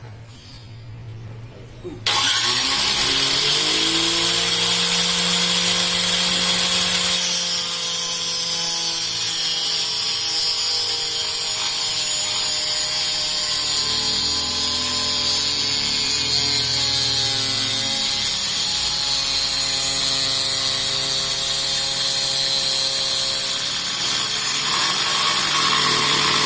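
Electric motor of a homemade table saw switching on about two seconds in, spinning up with a rising whine, then running steadily with a blade whirr and small dips in pitch.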